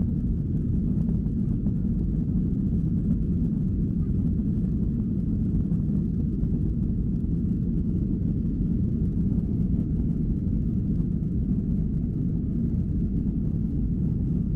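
Steady low rumble of a jet airliner's engines and airframe, heard inside the passenger cabin as the plane taxis on the ground.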